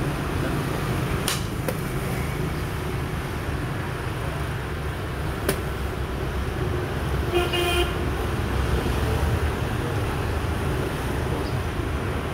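Steady street traffic rumble, with one short vehicle horn toot about seven seconds in. A few sharp clicks come earlier, from xiangqi pieces being set down on the wooden board.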